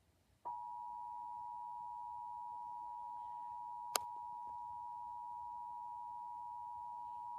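Emergency Alert System two-tone attention signal: the 853 Hz and 960 Hz tones sounding together as one steady tone, starting about half a second in, with a brief click about four seconds in.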